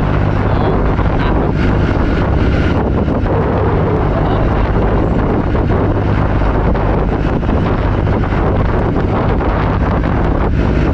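Fishing boat's engine running steadily underway, with wind buffeting the microphone.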